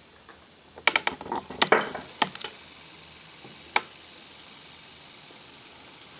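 Handling clicks and knocks on a kitchen countertop, among them a glass mug set down. There is a quick cluster of them about one to two and a half seconds in and a single click near four seconds, over a faint steady hiss.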